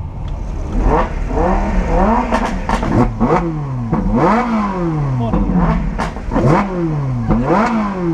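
Car engines being revved again and again, each rev rising and falling in pitch about once a second, with several blips overlapping, heard from inside a car's cabin.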